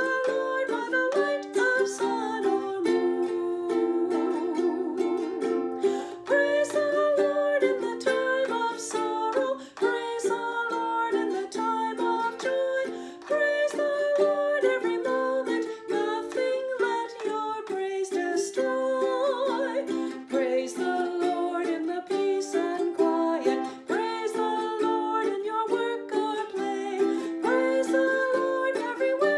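Instrumental music: a melody of held notes over a steady accompaniment.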